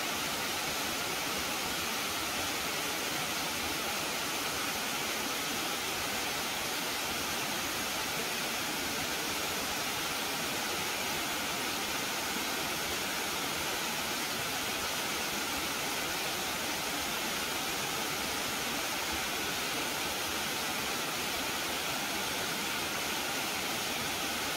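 Tiered cascade waterfall, water pouring over rock ledges in a steady, even rush.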